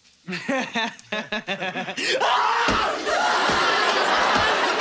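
Shouting voices during a padded-stick fight, then from about two seconds in a studio audience cheering and laughing loudly, with a few dull thuds.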